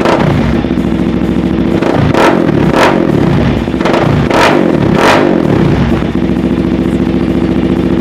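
Suzuki LT-Z400 quad's single-cylinder four-stroke engine idling through an HMF Competition Series exhaust, with the throttle blipped four times in two quick pairs, the exhaust note rising and falling with each rev.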